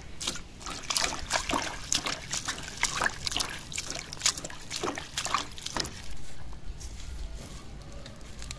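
A hand swishing sliced banana blossom around in a metal basin of water: quick, irregular splashes and sloshes that die down about six seconds in.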